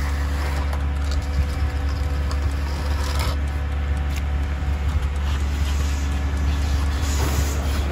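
A vehicle engine running steadily as a low drone, with soft scraping as a long-handled concrete rake (tonbo) is dragged through wet concrete.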